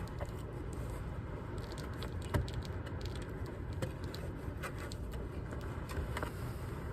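Hands picking and scraping packed lint out of a roof dryer-vent cap, whose damper flap the lint had jammed shut. Small scattered scrapes and clicks, with one sharper click about two and a half seconds in, over a steady low rush of noise.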